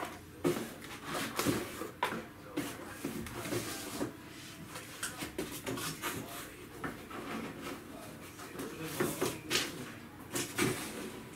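Hands handling a laptop: irregular plastic clicks and knocks with rustling in between, and a few sharper clicks near the end.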